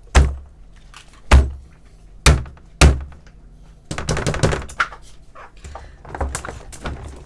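Fidget toys being handled: four dull thuds in the first three seconds, then a stretch of rustling and light tapping about four seconds in.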